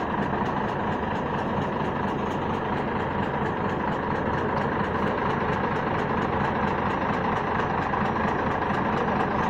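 Excavator's diesel engine running steadily, holding an even pace without revving up or down.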